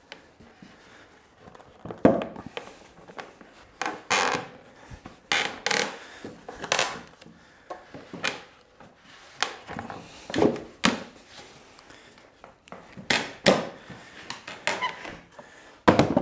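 A laminated softwood 2x4 workbench apron being fitted down over the tops of the leg frames: a series of irregular wooden knocks, bumps and short scrapes as the timber is worked onto a snug joint.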